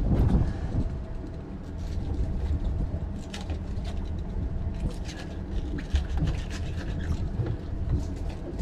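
Low, steady rumble of an idling boat engine, with scattered light taps and clicks from handling a fish.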